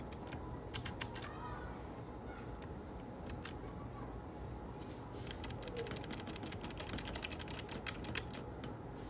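Computer keyboard keys clicking: a few scattered keystrokes, then about halfway in a fast, even run of taps, about eight a second, for some three seconds. The run is a key tapped over and over to delete typed text character by character.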